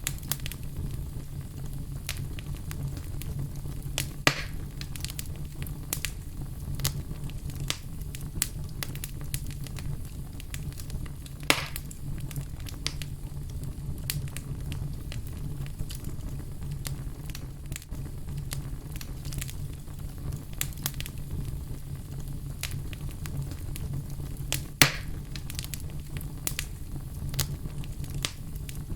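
Fire crackling in a fireplace: a steady low rumble under a constant scatter of small crackles, with three louder pops spread through it.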